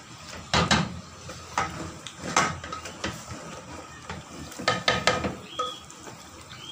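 Wooden spoon stirring chicken korma in a metal pot, with a handful of sharp knocks and scrapes against the pot's side, some ringing briefly; a cluster of three quick knocks comes about five seconds in.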